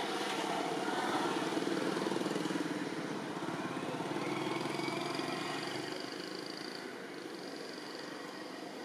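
A small engine running, growing louder twice and fading over the last few seconds.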